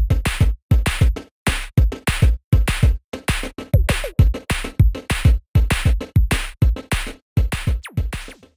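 Electronic music with a punchy drum-machine beat, chopped into short stuttering hits with brief gaps between them, cutting off just before the end.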